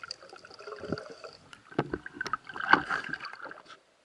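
Muffled underwater gurgling and knocking with scattered sharp clicks, picked up by a camera mounted on a speargun as it moves through the water. It cuts off suddenly near the end.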